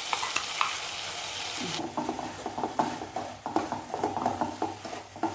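Onions frying in oil in a kadai, sizzling with sharp spits and pops while a spoon stirs them. About two seconds in the sizzle drops away abruptly, leaving quick scraping and knocking strokes of the spoon against the pan.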